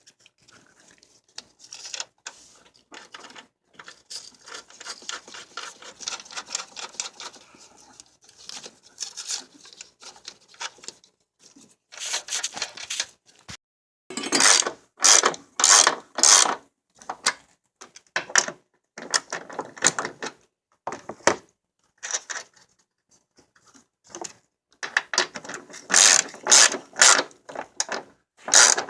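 Ratchet wrench clicking as the nuts holding a new upper control arm are run down and tightened. Fast, fine clicking for the first ten seconds or so gives way to a string of louder ratcheting strokes.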